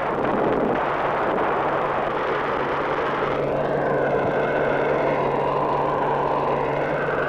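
Rocket engine at liftoff: a loud, steady rushing noise that starts suddenly and holds.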